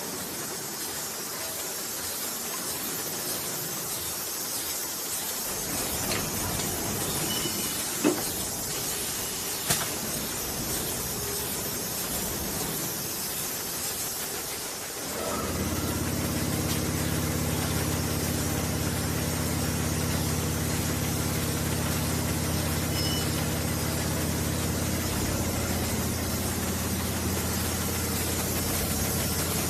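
Automatic linear edible-oil bottle filling and capping machine running, with a steady hiss and two sharp clacks about a second and a half apart. About halfway through, a steady machine hum sets in and carries on.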